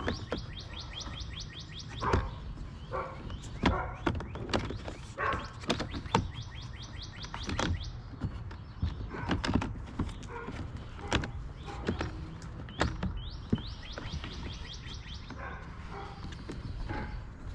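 Plastic motorcycle fairing panel knocking and clicking as it is handled and lined up on its mounting clips. Twice, near the start and about two-thirds in, a bird sings a rapid trill of high repeated notes in the background.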